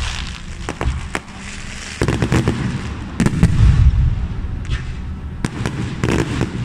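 Aerial fireworks display: shells launching and bursting overhead in a run of sharp cracks and bangs with low rumbling booms, heaviest about two to four seconds in, with more cracks near the end.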